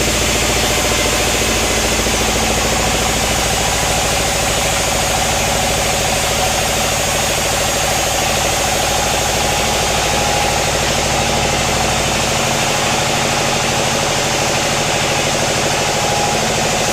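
Sawmill machinery running: a steady engine drone with a constant whirring noise over it, unbroken throughout; the low hum shifts slightly about twelve seconds in.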